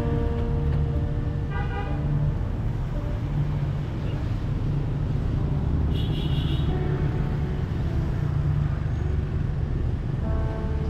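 City street traffic: a steady rumble of engines and tyres, with a vehicle horn tooting briefly about 2 s in and again about 6 s in.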